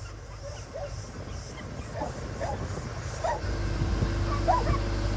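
Dogs giving short, high yips and whines, about five times. A steady low hum from a motor comes in about two-thirds of the way through.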